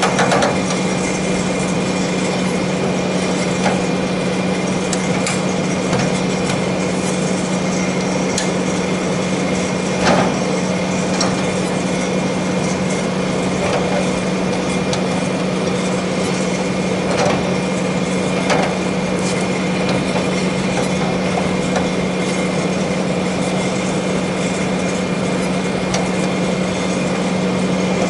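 Cowl latches on a Boeing 777's GE90-90B engine nacelle clicking as they are worked by hand, a few sharp clicks spread apart with the loudest about ten seconds in. Under them runs a steady machine hum with several fixed tones.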